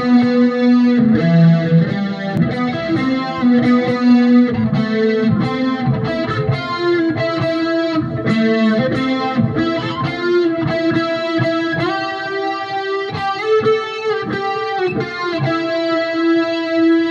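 Instrumental intro of a rock song: guitar through effects, with distortion and chorus, playing held, ringing notes and a slow melodic line. There are no drums or vocals.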